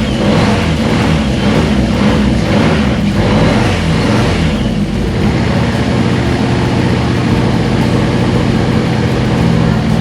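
Toyota AE86's 4A-GE four-cylinder engine running, after the replacement of its blown head gasket.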